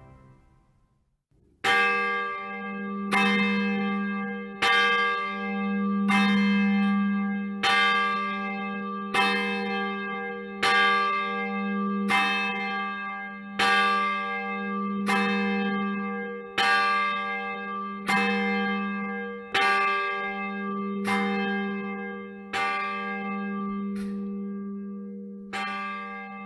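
A single church bell tolls steadily from about two seconds in, struck about every second and a half, with each stroke ringing on into the next. It is the bell rung just before the service begins.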